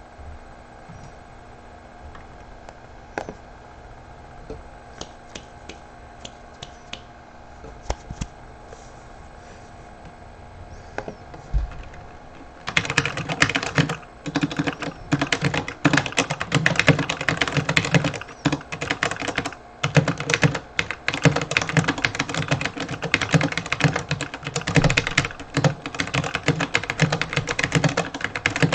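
Typing on an RK84 mechanical keyboard with completely stock (unmodded) TTC Brown tactile switches. There are a few scattered single keystrokes at first, then fast continuous typing from about halfway on, broken by a few short pauses.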